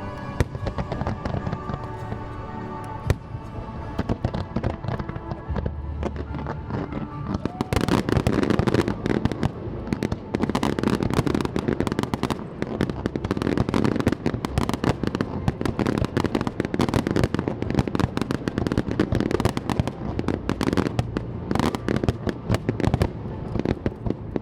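Fireworks bursting and crackling over music. Scattered bangs at first, then a dense barrage of cracks and booms from about eight seconds in.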